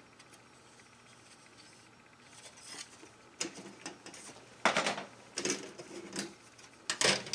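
Plastic model-kit sprues being handled and swapped over: an irregular run of light clacks and rustles that starts about two seconds in, with the loudest clatters about halfway through and again near the end.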